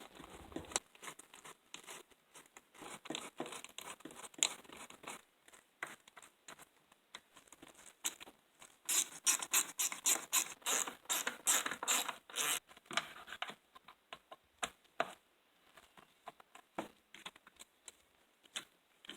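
Hand work on a small two-stroke engine's parts as it is put back together: irregular small clicks and scrapes of plastic and metal pieces and screws. About nine seconds in comes a dense run of rapid clicking for some three seconds.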